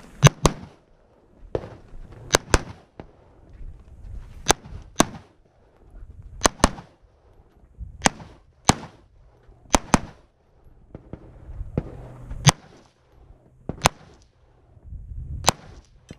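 A string of rifle shots, sharp cracks every second or two, many coming in quick pairs a fraction of a second apart, with low rumbling handling noise between them.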